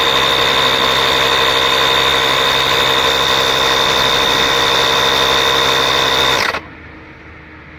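A machine motor running steadily with a strong high-pitched whine, cutting off suddenly about six and a half seconds in and leaving a fainter hum.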